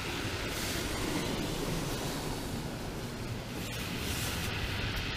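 Steady wash of sea surf on a shingle beach, with wind in the background.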